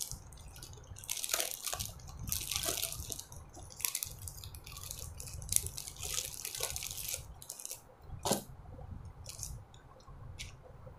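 Plastic packaging and garments rustling and crinkling as they are handled on a plastic-covered table, in short bursts with several sharp taps and clicks, the loudest about eight seconds in.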